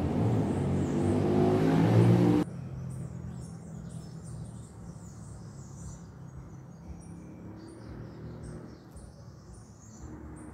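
A motor vehicle's engine revving up, its pitch rising and getting louder, which cuts off suddenly about two seconds in. After that, birds chirp over a faint low hum.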